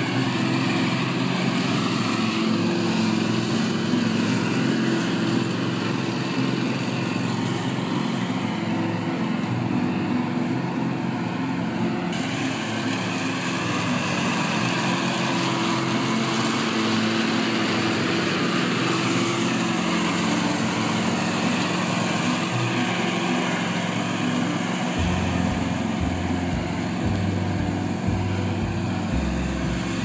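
Small petrol engine of a tracked remote-control mower running steadily as it tows a lawn sweeper over leaf-covered grass. A low rumble comes in near the end.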